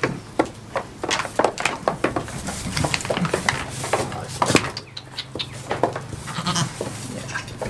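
Goats bleating amid a run of sharp, irregular knocks and clatters, like hooves on the shed's wooden boards.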